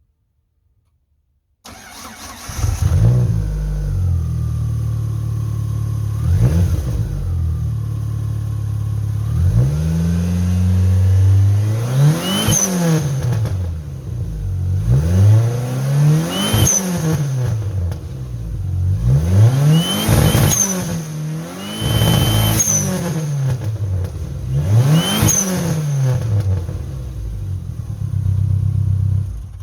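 Dodge SRT-4's turbocharged 2.4-litre four-cylinder engine idling, then blipped, then revved hard about five times, each rev climbing and falling back quickly. The engine sound cuts in about two seconds in and stops abruptly near the end.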